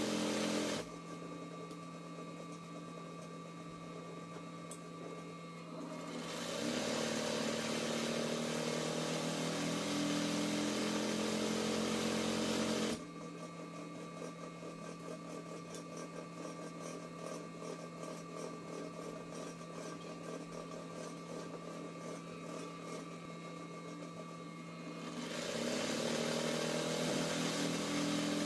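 RANEW 130 zigzag sewing machine stitching free-motion embroidery: the motor and needle run fast with a steady hum, then drop suddenly to a quieter, slower stitching rhythm about a second in. They speed up again about six seconds in, slow suddenly about halfway through, and speed up once more near the end.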